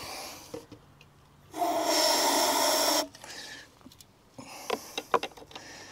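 Aerosol carburettor cleaner sprayed down the spark plug hole of a lawnmower engine as a starting aid: one loud, steady hiss lasting about a second and a half. A few light clicks of handling follow near the end.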